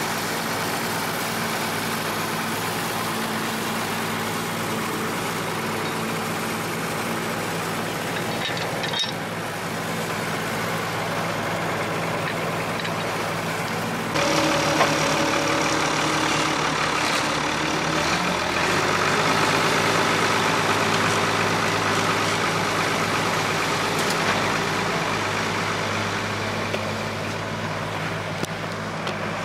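Farm tractor engine idling steadily. About halfway through it grows louder and its tone shifts, then settles into a slightly different steady note.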